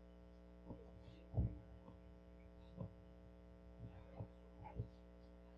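Steady low electrical hum with about seven brief, soft knocks and clicks scattered through it.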